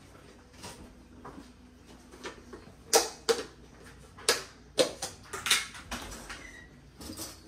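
A series of irregular sharp knocks and clicks, about a dozen over several seconds, the loudest about three seconds in.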